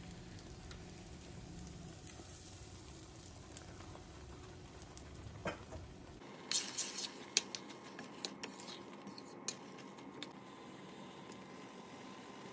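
Faint sizzling as a hot tadka of oil and spices is poured over chickpea curry in a stainless-steel pan. About six seconds in, a metal spoon starts clinking and scraping against the pan in short, irregular strokes as the curry is stirred.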